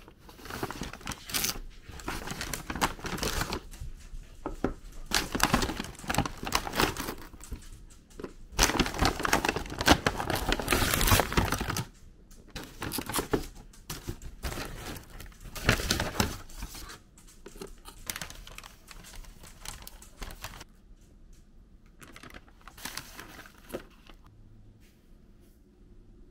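Paper bag and plastic packaging rustling and crinkling as takeaway food containers are handled and lifted out. The crackling is dense for about the first half, then comes in sparser handfuls and dies down near the end.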